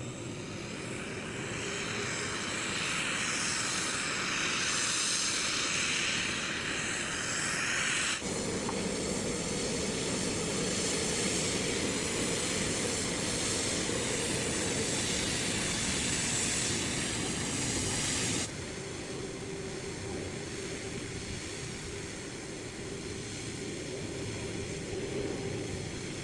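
Jet engines of an Airbus A330 airliner taxiing at low thrust: a steady whine over a hissing rumble. The tone and loudness shift abruptly twice.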